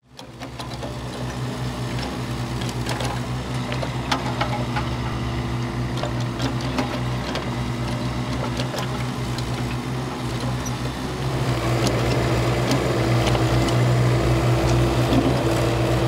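Kubota mini excavator diesel engines running steadily while digging, with scattered clicks and clanks. The engine sound gets louder about eleven seconds in.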